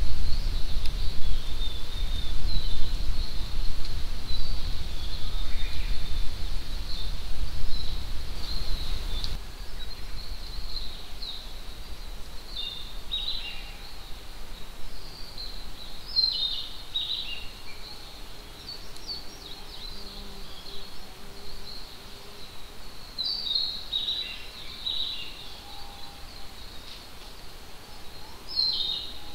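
Forest birdsong: small birds' short high chirping calls repeat throughout, with faint, drawn-out, low flute-like whistles of a white-bellied green pigeon in the second half. A low rumble of wind on the microphone cuts off about nine seconds in.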